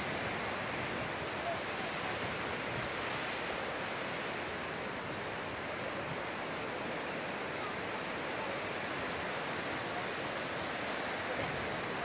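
Steady rushing of a tall waterfall dropping down a cliff face.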